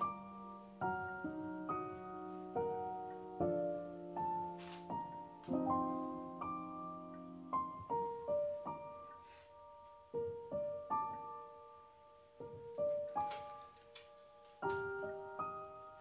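Background piano music: a slow, gentle piece with held low chords under the melody at first, thinning to a sparser single-line melody about halfway through.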